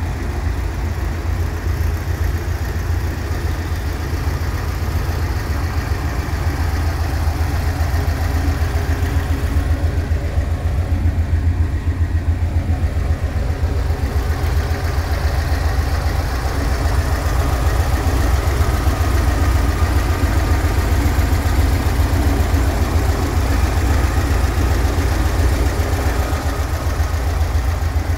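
Classic VW Bus's rear-mounted air-cooled flat-four engine idling steadily with a fast, even low throb.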